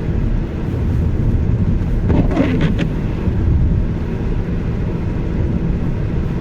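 Opel Astra 1.6 81 kW engine running under load while accelerating, with the rattling on acceleration that the owner is recording. About two seconds in there is a brief burst of quick, higher-pitched rattling knocks.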